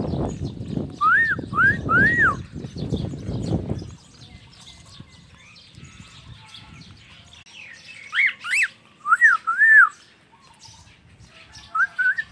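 Peach-faced lovebird giving short, shrill chirps that rise and fall in pitch: three in a quick run about a second in, and a burst of four or five around eight seconds in, with more near the end. A low rumbling noise fills the first four seconds.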